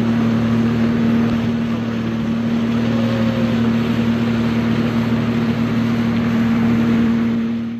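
Jet ski engine running at a steady, constant speed, with wind and water rushing past. It cuts off abruptly at the very end.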